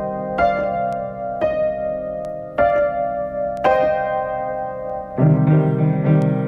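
Outro music: piano or electric keyboard playing sustained chords, a new chord struck about once a second, with a fuller low chord coming in about five seconds in.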